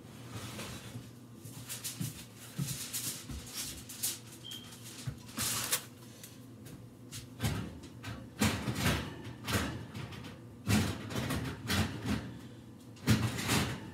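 Kitchen clatter: a run of knocks, bumps and short scrapes from cookware and cupboards being handled, more frequent and louder in the second half.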